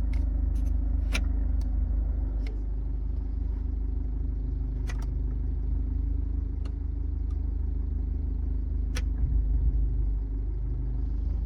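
Jaguar's engine idling with a steady low hum, with about ten sharp clicks at irregular intervals from the just-repaired gear selector being worked during a test.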